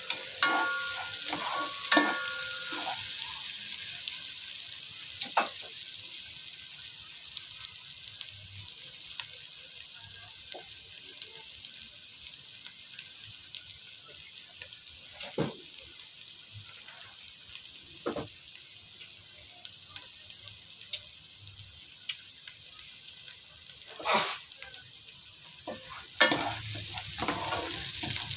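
Chopped garlic and onion sizzling in butter in a pot, the sizzle slowly dying down. A wooden spatula stirs and knocks against the pot a few times, most busily near the end.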